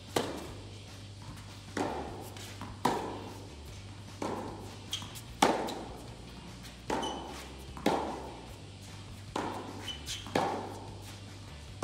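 Tennis ball struck with a racket in a rally, forehand after forehand, with the ball also bouncing on the court: about ten sharp pops, roughly one a second, each ringing briefly in the echo of a large hall.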